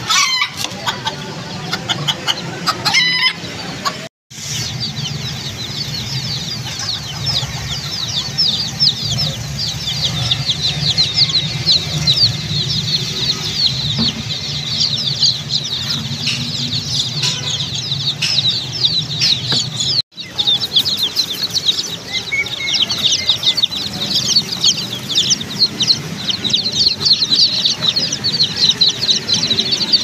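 A crowd of young chicks peeping nonstop: a dense chorus of short, high, falling cheeps. In the first few seconds, an adult chicken clucks.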